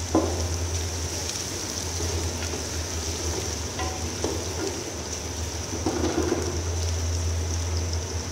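Sliced onions sizzling steadily in hot oil in a large aluminium pot while a wooden spoon stirs them, with a few knocks and scrapes of the spoon against the pot. The onions are just starting to turn golden and are being fried on to golden-brown crispness.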